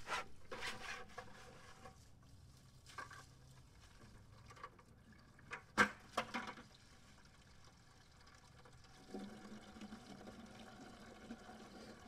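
Water splashing and pouring from a plastic bucket at a yard hydrant, with sharp knocks of the bucket and the hydrant handle. A faint steady hum starts about nine seconds in.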